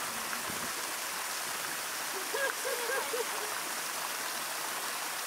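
Steady rush of running water. A few faint short calls come through it near the middle.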